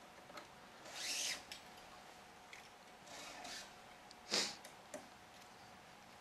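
Badminton string being pulled and woven through the racket's crossed strings, rasping as it slides string against string in a few swishes, the loudest and sharpest about four seconds in.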